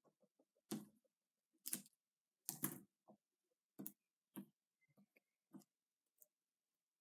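Paper strips being handled and pressed onto a sheet of paper with a glue stick: about six short, irregular taps and rustles with quiet gaps between them.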